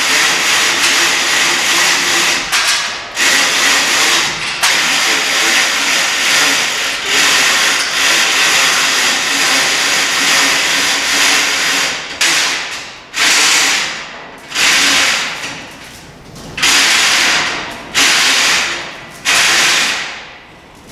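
Hand chain hoist being hauled under the weight of a heavy steel shelving unit, its chain rattling and clattering through the hoist. It runs as one unbroken stretch at first, then as a series of separate pulls about a second each in the second half.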